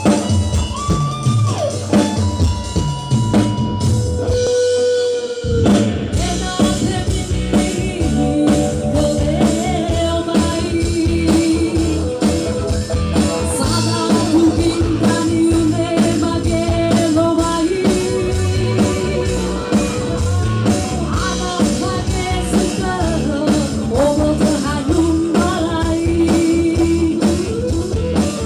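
A band plays a song: a short keyboard intro, then the full band with a steady drum beat comes in about five seconds in, and a woman sings over it.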